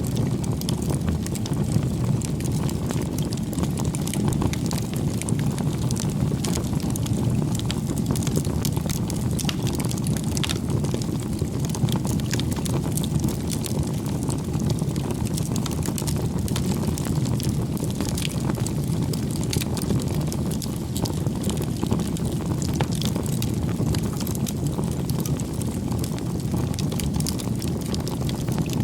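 Bonfire burning: frequent small crackles and pops of burning wood, scattered irregularly over a steady low rushing.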